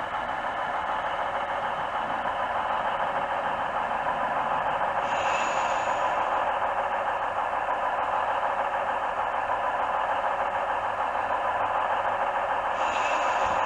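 Model locomotive's DCC sound decoder playing a steady engine sound through its small onboard speaker, thin and lacking bass. A brief high-pitched tone sounds about five seconds in and again near the end.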